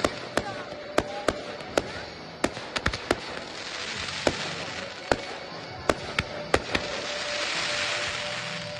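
Professional fireworks display: more than a dozen sharp, irregular bangs of bursting shells over a hissing crackle that swells and fades, loudest near the end.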